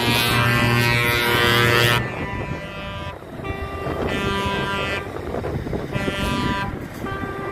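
Trucks' air horns blowing: one loud blast for the first two seconds that cuts off sharply, then several shorter blasts of about a second each with short gaps between, over the low rumble of the passing trucks' engines.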